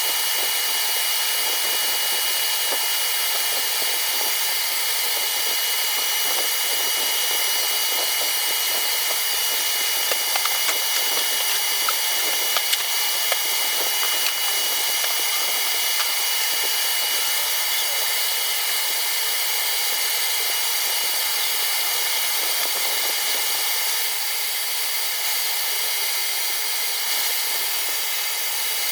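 WEN LA3421 mini lathe running, a steady whirring hiss with a thin high whine over it. A few short sharp ticks come between about ten and fourteen seconds in.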